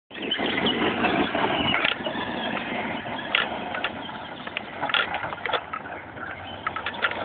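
Radio-controlled monster truck driving hard over loose dirt and gravel, its motor and tyres loudest as it pulls away and fading as it runs off across the field, with scattered sharp clicks through it.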